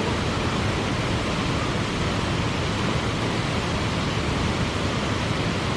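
Cheonjiyeon waterfall: a steady, unbroken rush of falling water.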